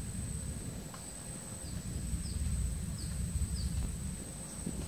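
Wind rumbling on the microphone, with about five short, falling bird chirps and a steady high-pitched whine.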